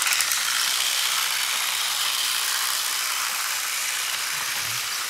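Battery-powered toy trains running on plastic track: a steady whirring of small motors and gears, with a few quick clicks at the start.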